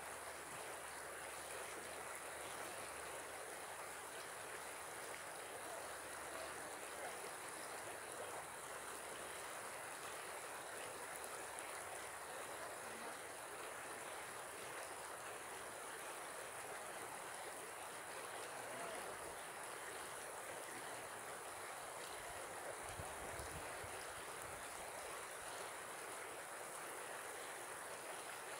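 Shallow river running steadily over its stony bed: an even, unbroken rush of flowing water.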